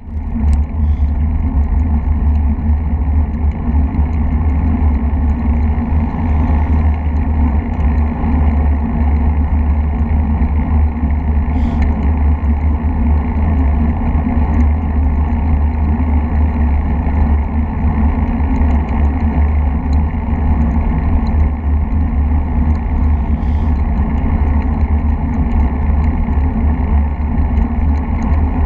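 Steady heavy wind rumble on the microphone of a moving bike, with tyre and road noise underneath and a few faint clicks.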